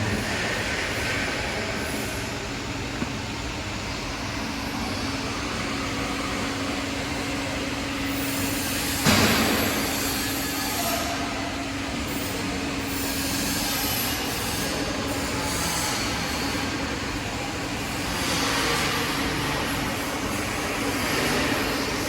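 Profile bender (metal roll-bending machine) running under CNC control: a steady hum with a metallic rolling noise, and one sharp clank about nine seconds in.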